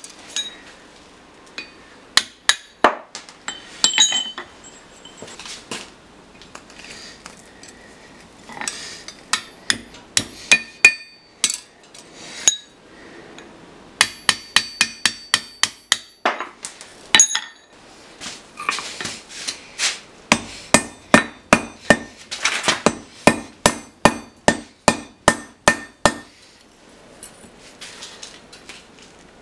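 A blacksmith's hammer strikes a punch and a block of hot 4140 tool steel on an anvil, punching and shaping a nail header. The blows come in runs of two or three a second with short pauses between, and a thin metallic ring follows some strikes.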